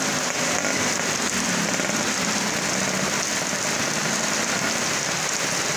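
Heavy rain pouring steadily onto a wet asphalt road and roofs, a dense even hiss. A motor scooter's engine hum fades away in the first couple of seconds.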